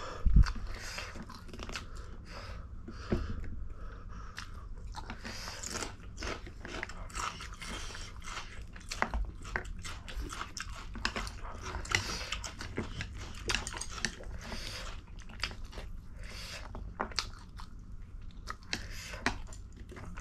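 People chewing and biting food close to the microphone, with irregular crunches and wet smacking clicks throughout. A sharper knock comes about half a second in.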